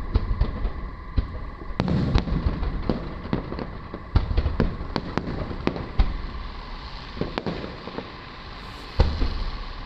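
Aerial fireworks bursting: a steady scatter of sharp cracks and pops, with heavier booms about two, four, six and nine seconds in.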